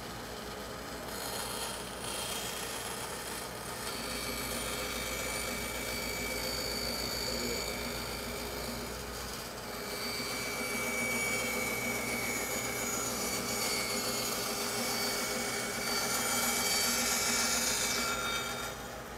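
Bandsaw running and cutting a circle from a wooden board as the board is turned on a pivot-pin jig: a steady motor hum under the blade's sawing noise. The cutting gets louder about halfway through and dips just before the end.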